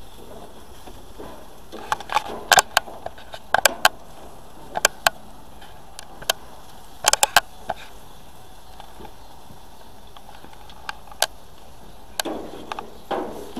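Scattered sharp clicks and clacks of metal tongs against the grill grates and a ceramic bowl as grilled chicken pieces are lifted off a gas grill. They come in small clusters over a steady low hiss, with a last group near the end.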